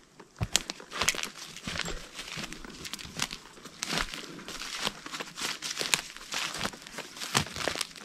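Footsteps through forest undergrowth, with leaf litter and small twigs crunching and rustling underfoot in an irregular run of crackles.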